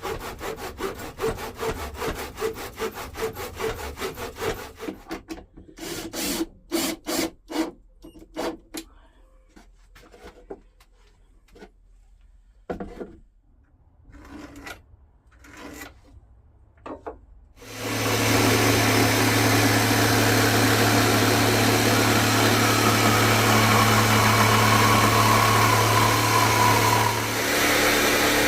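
Hand saw cutting wood in quick, even strokes, then a few slower, scattered strokes. About eighteen seconds in, a loud, steady machine drone starts and keeps running.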